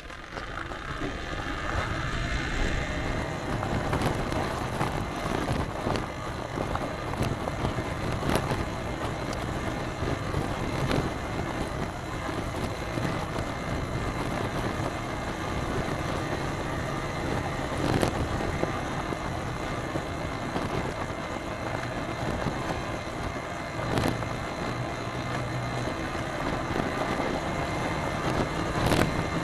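Vehicle driving on a road: steady road and tyre noise with wind rush and a low hum, with a few sharp knocks from bumps.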